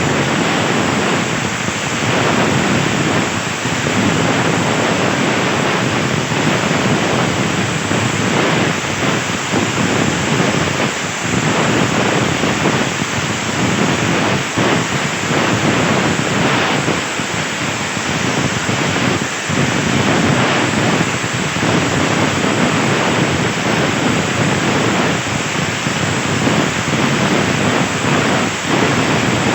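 CNC air plasma cutter cutting 1.5 mm sheet steel: a loud, steady hissing rush from the torch's arc and air jet, with a few brief dips.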